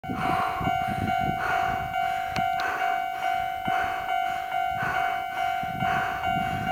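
Japanese railway level-crossing alarm ringing in a steady repeated clang, a little under two strokes a second, with a low rumble underneath.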